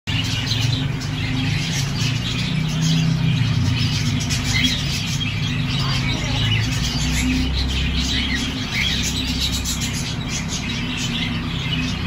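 Many lovebirds chirping and chattering in a dense, continuous stream of short high calls, over a steady low rumble.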